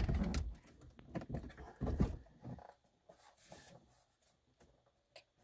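Factory car radio's metal-cased head unit being slid out of the dashboard by hand: a few knocks and scrapes of the unit against the dash opening in the first couple of seconds, then only faint handling ticks.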